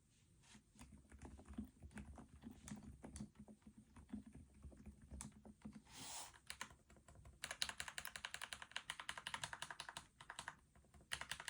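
Typing on an Epomaker Roseveil mechanical keyboard with silent switches: soft, muffled keystrokes, then a fast, dense flurry of keypresses about two-thirds of the way in, and a short burst near the end.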